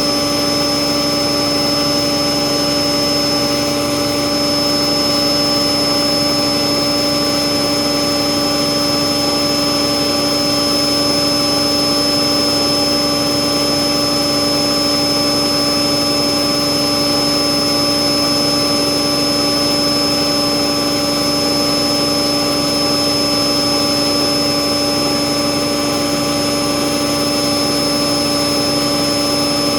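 Bauknecht WAS 1400 washing machine running at a steady speed, a constant whine of several steady tones over an even rushing noise.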